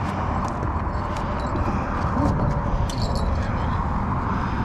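Steady rumble of road traffic on the bridge, with a few faint light clicks.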